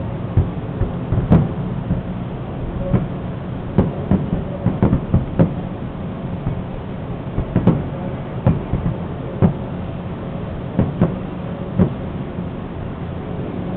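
Fireworks shells bursting in a run of irregular sharp bangs, some in quick clusters, thinning out and stopping a couple of seconds before the end. A steady low hum runs underneath.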